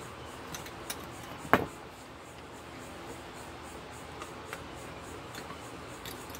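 Tongue-and-groove pliers gripping and prying at a connector strip on a circuit board backplane: one sharp snap about a second and a half in, then a few faint ticks and clicks. The connector is stubborn and resists being stripped from its pins.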